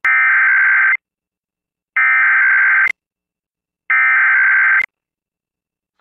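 Emergency Alert System SAME header: three bursts of high-pitched digital data tones, each about a second long with about a second's pause between them. This is the coded preamble that opens an EAS alert, here a civil emergency message.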